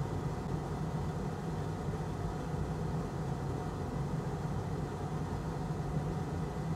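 Steady low hum with a faint hiss, unchanging throughout: workbench background noise during microsoldering, with no distinct events.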